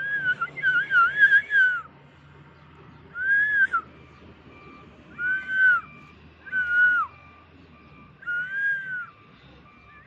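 Cockatiel whistling about five short warbling phrases, each rising then falling in pitch, the first the longest.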